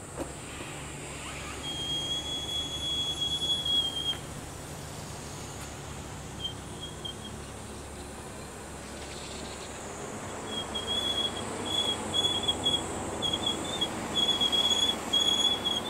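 Car brakes squealing, an abnormal brake noise: one steady high-pitched squeal of about two seconds, then a run of short squeals repeating in the last few seconds, over the rolling noise of the car.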